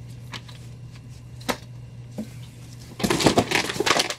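Comic books and cardboard being handled in a shipping box: a few light taps, then a loud burst of rustling and shuffling about three seconds in. A steady low hum runs underneath.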